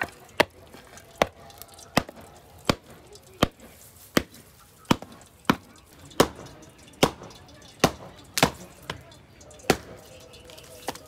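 Knife chopping food on a cutting board: steady, even strokes, about one every three quarters of a second.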